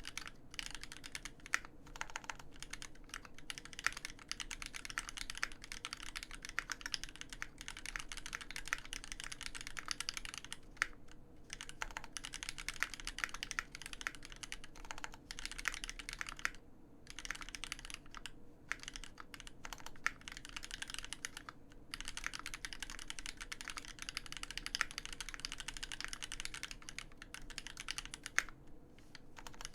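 Fast, continuous typing on an Alpine65 custom mechanical keyboard with Krytox-lubed Marshmallow switches on a brass plate and GMK keycaps: a dense run of keystroke clacks, broken by a few brief pauses.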